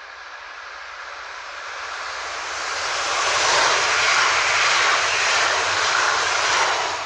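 Class 442 Talent 2 electric multiple unit passing at speed with a rushing noise of wheels on rail and air. The noise builds as the train approaches and is loudest from about three seconds in as the cars pass close by. No horn is heard.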